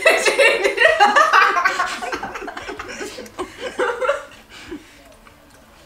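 Women laughing loudly right after a joke, the laughter dying down over the next few seconds.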